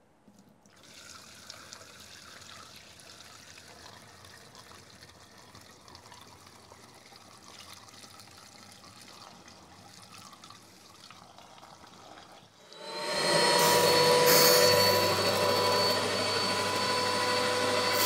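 Water poured from a tank into a Britex carpet and upholstery vacuum cleaner. About 13 seconds in, the cleaner's motor starts and runs loud and steady with a whine.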